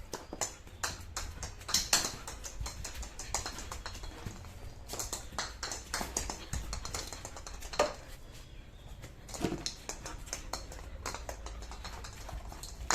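A dog's claws and paws clicking and pattering irregularly on a hard floor as it plays fetch, with a couple of louder knocks from the ball.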